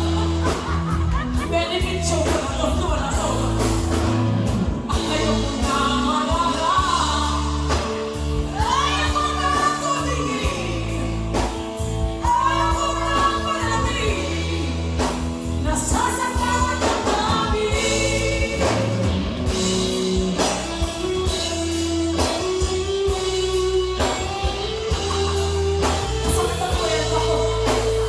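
A song sung by a voice over instrumental accompaniment with a strong, steady bass line.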